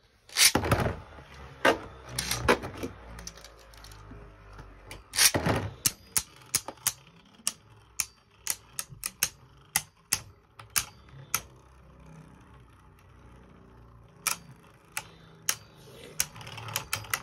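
Two Beyblade spinning tops ripped out of their ripcord launchers into a plastic stadium, one about half a second in and the other about five seconds in. The tops then clack against each other and the stadium wall in a run of sharp clicks that thin out toward the end.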